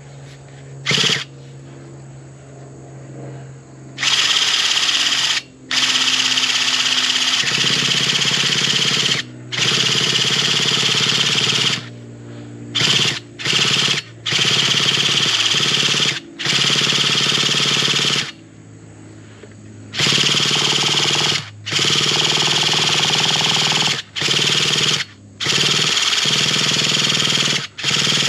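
Traxxas Revo 3.3 nitro engine being spun by its electric starter in about a dozen bursts of one to three seconds, starting about four seconds in, without the engine catching.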